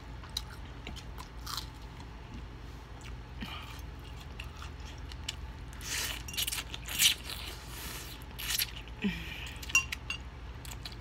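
Mouth sounds of eating: chewing and lip smacking, then loud slurps of instant ramen noodles in the second half.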